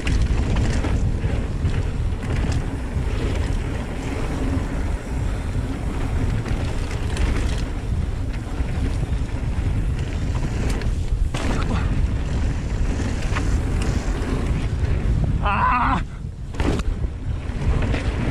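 Wind buffeting a helmet-mounted GoPro inside its windscreen while riding a mountain bike fast down a dirt trail: a steady low rumble with a few sharp knocks. About fifteen seconds in there is a brief higher-pitched sound, after which the rumble eases.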